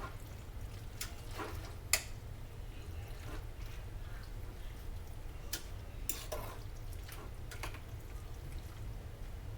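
A spoon or utensil stirring food in a pot, with a few sharp clicks and taps against the pan, over a steady low hum.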